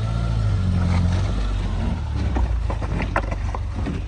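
Off-road SUV's engine running under load on a rocky trail climb, a steady low rumble that eases in the second half, with a few short knocks near the end.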